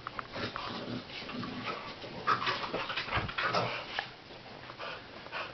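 A white boxer dog playing in a frenzy, with breathy noises and short whimpers from the dog amid quick scuffles and knocks, busiest from about two to four seconds in.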